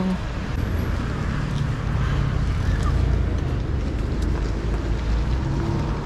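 City street traffic: a motor vehicle's engine running close by over a steady low rumble of traffic.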